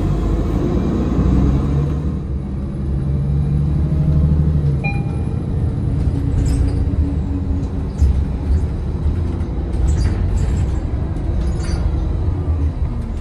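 Riding inside a city bus: steady low engine and road rumble, with a few short clicks and knocks in the second half and a brief high beep about five seconds in.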